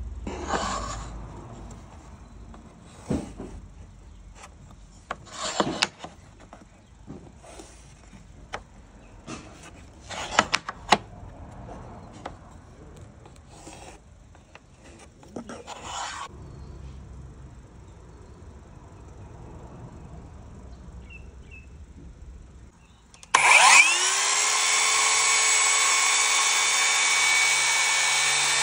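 Scattered light scrapes and taps as a wooden trim piece is handled against weatherboard and marked with a pencil. About 23 seconds in, a brushless circular saw spins up with a quick rising whine and runs steadily as it cuts along a trim board.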